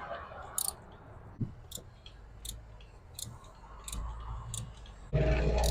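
Irregular sharp clicks of a socket ratchet wrench tightening spark plugs. A louder low rumble comes in near the end.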